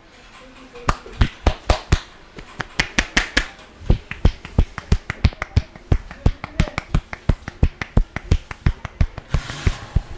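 Hands striking the head in a rapid percussive massage, sharp clapping smacks at about four or five a second. They start about a second in and stop just before the end.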